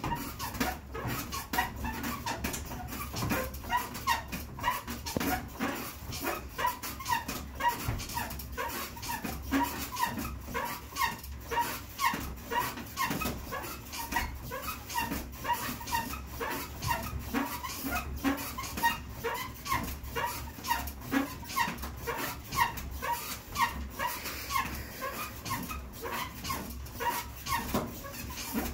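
Elliptical trainer in use: a rhythmic squeak with every stride, about one and a half squeaks a second, over a low running rumble.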